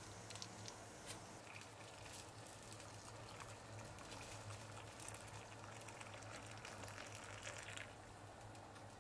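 Water poured in a thin stream into a ceramic bowl of miso paste, a faint trickling that stops about eight seconds in. A faint steady low hum runs underneath.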